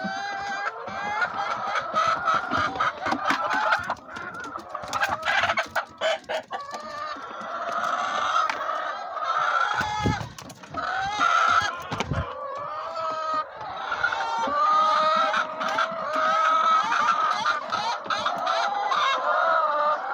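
A large flock of hens clucking and calling all at once, a continuous din of overlapping calls. A few sharp clicks and low knocks come about halfway through.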